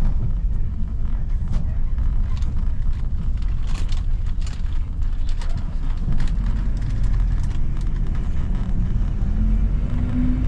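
Steady low rumble of a moving vehicle heard from inside, with scattered light clicks and rattles through the middle seconds.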